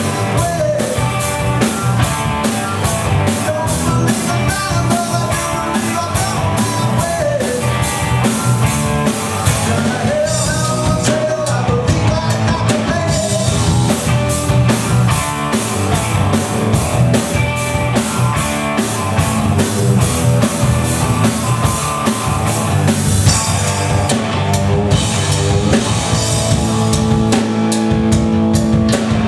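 Live rock band playing a song: electric guitars over a drum kit keeping a steady beat.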